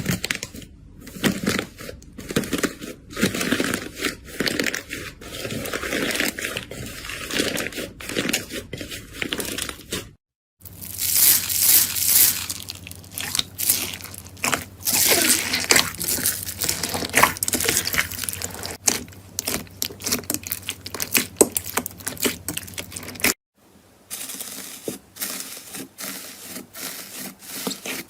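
Slime being squeezed, pressed and stretched by hand, giving off many small crackles and pops. The sound breaks off twice for a moment, where one slime clip gives way to the next.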